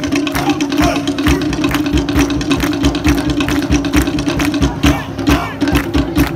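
Fast live Polynesian drumming accompanying a Tahitian-style dance: rapid, uneven wooden strokes over a steady low tone.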